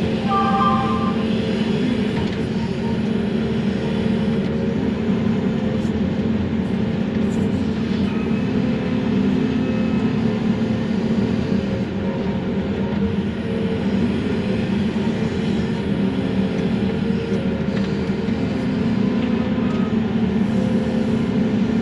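Excavator diesel engine and hydraulics running steadily under load, heard from inside the operator's cab while the grapple picks up and loads brush.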